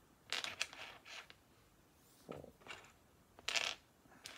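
Small plastic Lego pieces clicking and rattling as they are picked up and handled, in a few short bursts.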